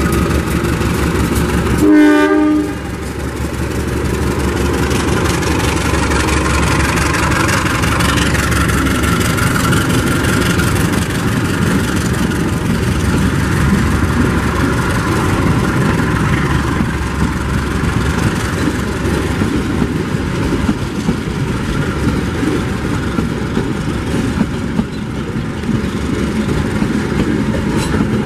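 KAI CC 201 diesel-electric locomotive and its passenger coaches rolling past close by, with a steady rumble of the engine and wheels clattering over the rails. The locomotive gives one short horn blast about two seconds in.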